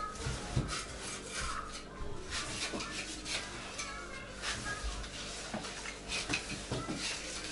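Light clinks, knocks and scraping of kitchenware and metal items being handled, in an irregular scatter of small sounds.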